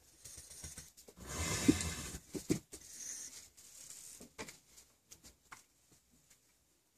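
Rustling and scuffing in the stall's sawdust bedding as a newborn foal is handled and moves its legs, with a few light clicks and knocks, dying away near the end.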